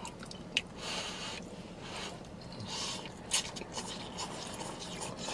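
Wet mouth noises close to the microphone: a few sharp lip smacks and tongue clicks, with two longer hissing breaths between them.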